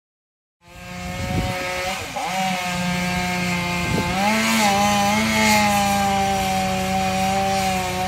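Chainsaw engine running at high revs while cutting wood. The sound starts a little under a second in, its pitch dips and recovers a few times over the first four seconds, then holds steady.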